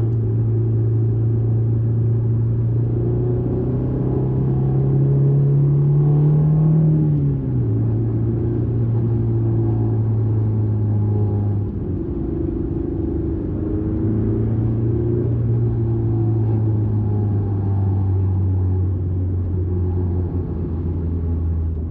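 Honda S2000's 2.0-litre four-cylinder engine pulling under load, its note rising steadily for about seven seconds, then falling away sharply as the car shifts or lifts off. It then runs on at a steady, lower pitch, with a short dip in the sound about halfway through.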